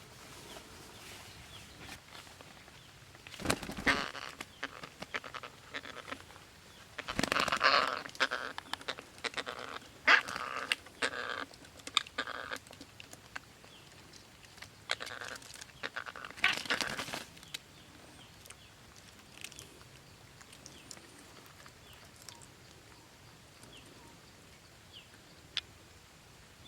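Parrot nestlings squawking harshly in several bouts during the first two-thirds, then only faint short bird chirps.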